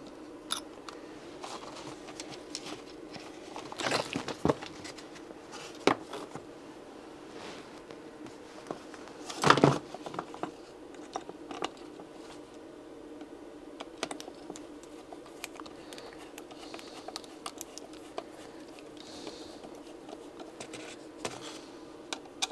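Hand-work sounds at a workbench: light clicks and rustles of an EPP foam wing being handled and a hex screwdriver fastening the motor, with one louder knock about nine and a half seconds in. A faint steady hum runs underneath.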